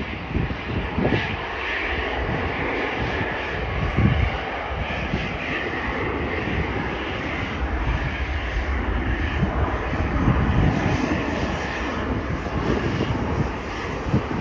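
Airbus A321 jet engines running at takeoff thrust during the takeoff roll, a steady rush of noise, with irregular low wind thumps on the microphone.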